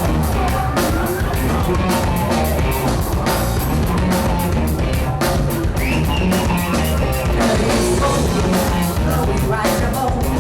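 Live band playing a heavy rock track with drum kit and guitar at a steady, loud level, with some singing.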